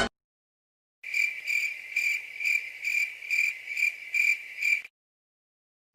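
Cricket chirping sound effect: a steady run of about nine high chirps, a little over two a second, starting about a second in and stopping about a second before the end.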